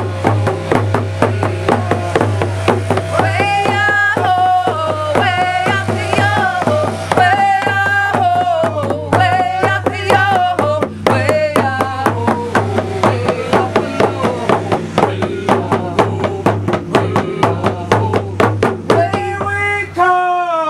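Indigenous hand frame drums beaten in a steady even beat while voices sing a song over them. The drumming stops near the end and the singing carries on.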